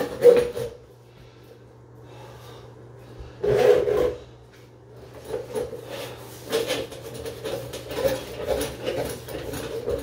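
Steel drain-snake cable rasping and scraping as it is fed by hand into a clogged bathtub drain, in a series of short strokes with one louder scrape about three and a half seconds in. A steady low hum runs underneath.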